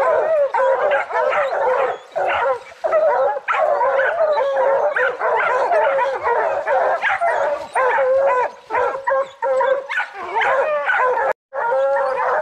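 A pack of bear hounds baying at a treed bear, many barks and bawls overlapping without a break. The sound cuts out for an instant near the end.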